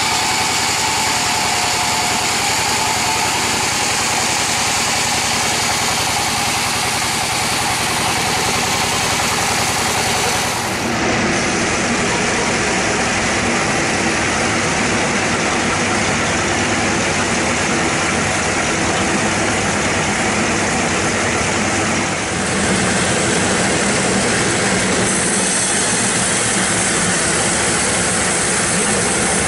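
Sawmill band saw running steadily under its drive engine, the blade cutting lengthwise through a bayur (Pterospermum javanicum) log. The sound changes abruptly about eleven seconds in and shifts again a little past twenty seconds.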